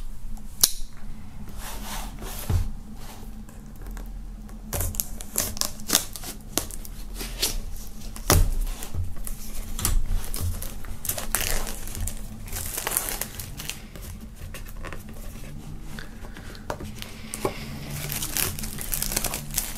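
Plastic shrink-wrap film being cut open and peeled off a small cardboard box: irregular crinkling and crackling of the plastic with scattered sharp clicks and a little tearing, louder in stretches.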